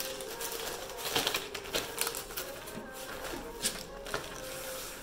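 Rustling and irregular light clicks of a magazine and its packaging being handled, with faint background music.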